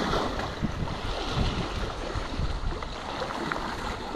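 Wind rushing over the microphone, with small waves lapping against the rocky shore.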